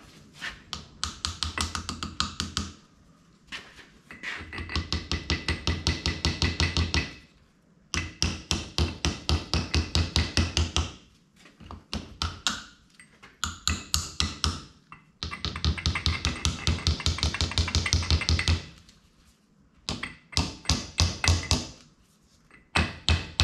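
Quick, sharp metal taps, about six a second, in runs of two to four seconds with short pauses. They come from a new front pump seal being tapped into a TH350 automatic transmission's front pump housing.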